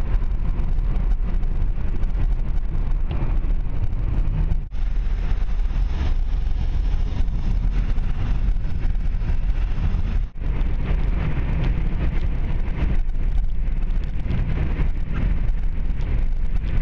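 Car driving at road speed, heard from inside the cabin: a steady low rumble of road and engine noise, with two brief drop-outs about five and ten seconds in.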